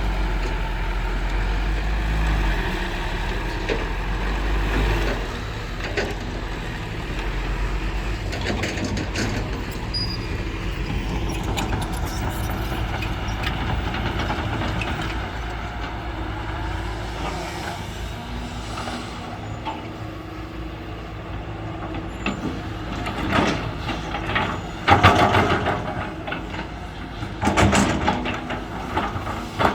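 Heavy diesel engines of a digging excavator and a six-wheel dump truck running, with a deep rumble at first. Several louder, rough bursts of noise come near the end.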